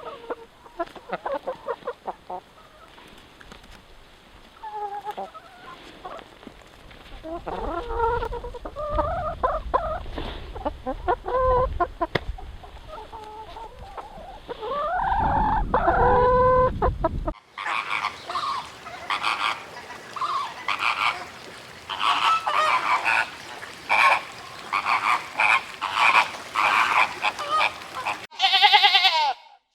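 Domestic fowl calling in short clucks and honks. About 17 seconds in the sound cuts to a denser run of rapid repeated calls, and near the end it cuts again to a different animal call.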